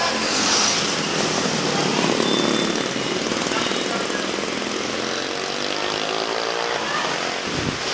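Busy street traffic: motorcycles and cars passing close by, a steady mix of small engines and tyre noise on asphalt.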